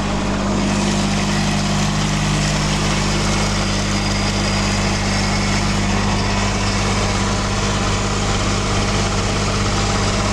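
Cub Cadet 1772 garden tractor's diesel engine running at a steady idle.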